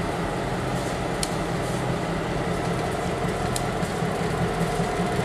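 EMD GP38-2 diesel locomotive's two-stroke V16 engine running steadily at low throttle as the locomotive creeps forward. A sharp click comes every couple of seconds from the wheels on the jointed rail.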